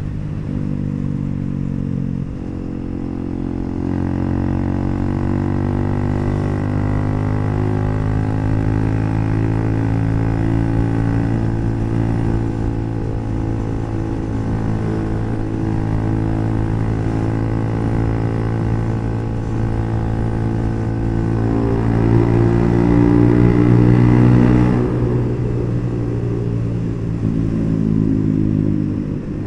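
Bajaj NS400Z's single-cylinder engine running through an HP Corse aftermarket exhaust while the bike is ridden, pulling with slowly climbing revs. It gets louder shortly before the end, then the revs drop near the end.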